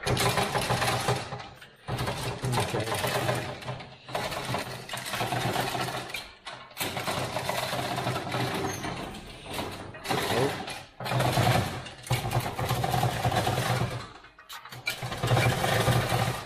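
Electric hoist motor running in repeated stop-start bursts of two to four seconds each, with short pauses between, as the cab is lowered onto the chassis.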